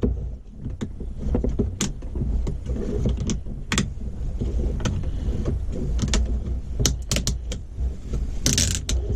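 Snap-on lid of a plastic salsa tub being worked off by hand: a run of sharp plastic clicks and crackles, with a denser crackle near the end as it comes free. A steady low rumble runs underneath.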